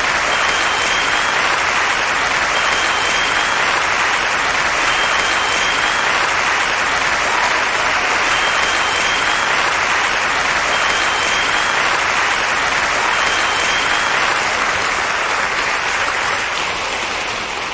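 Audience applause, steady and dense, tapering off slightly near the end.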